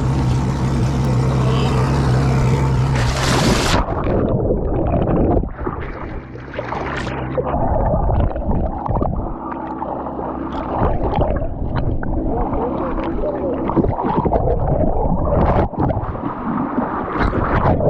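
Boat motor idling in neutral, cutting out abruptly after about four seconds. It is followed by continuous irregular water gurgling and sloshing close to the microphone.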